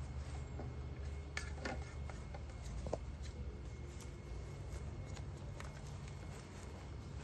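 Faint, scattered clicks and scrapes of a measuring scoop against a plastic tub as paint is measured out, over a steady low rumble.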